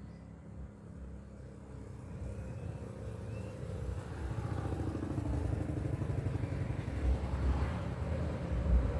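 Motorcycle running on the road with a low, uneven rumble that grows louder about two to four seconds in.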